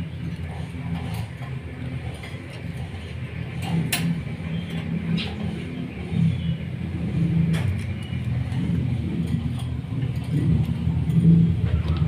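Low rumble of a motor-vehicle engine running nearby, growing louder near the end, with a few sharp clicks over it.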